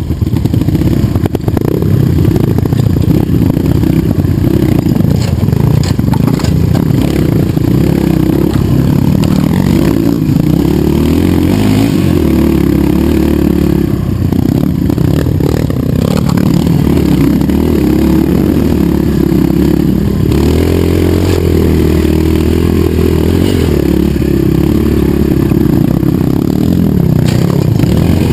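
Dirt bike engine running hard and revving up and down as it climbs loose rocky ground, with scattered knocks and scrapes of rocks under the tyres.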